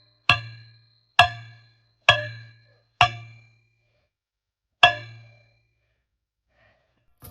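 A series of ringing metallic clangs: five sharp strikes about a second apart, the last after a longer pause, each ringing out and fading.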